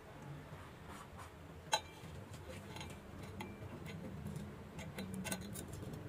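Light metallic clicks and ticks as a welding electrode tip is touched against a steel plate at the end of a weld bead: one sharp click a couple of seconds in and a cluster of small taps near the end, over a low steady hum.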